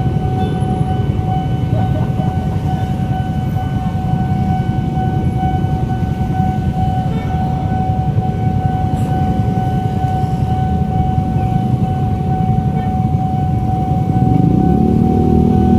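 Railway level-crossing warning alarm sounding one unbroken high tone, over the steady rumble of motorcycle and car engines at the crossing. Near the end the engine noise grows louder as a heavier vehicle comes through.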